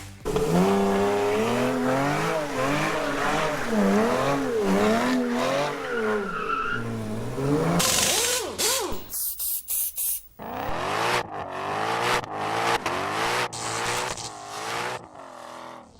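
A car engine revving up and down over and over, its pitch rising and falling, then breaking into short choppy pieces with sudden cuts about halfway through.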